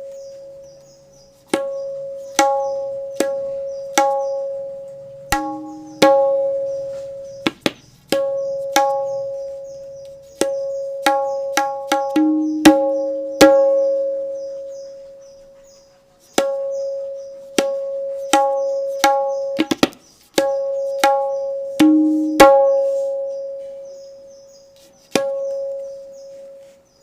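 Tabla struck one stroke at a time for a tone check, each stroke ringing on a clear steady pitch that slowly fades. Some strokes bring out a second, lower ring, and a few come as quick pairs.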